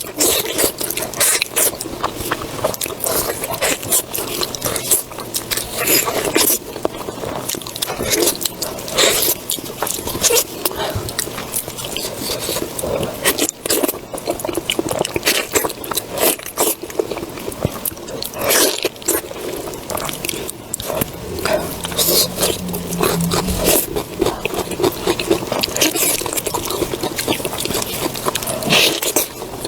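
Close-miked chewing and biting with frequent sharp crunches and crackles, typical of eating crunchy beef knee cartilage.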